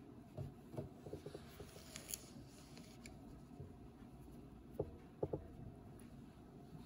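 Faint handling sounds of crocheting: bulky yarn rubbing as it is pulled through loops on a metal crochet hook, with light clicks and ticks, a cluster near the start and a few more about five seconds in.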